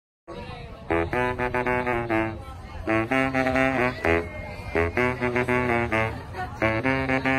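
Baritone saxophone playing quick runs of notes in about four short phrases with brief breaths between them, starting about a quarter second in.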